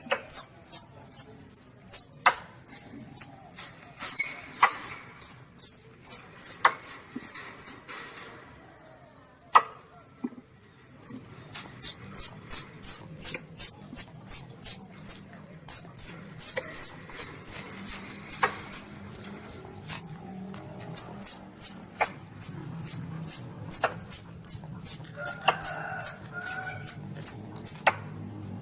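Young Asian palm civet (luwak) kitten calling: rapid series of short, high-pitched squeaks, each falling in pitch, about three a second, with a break about nine seconds in before the series resumes. Sharp clicks sound here and there among the calls.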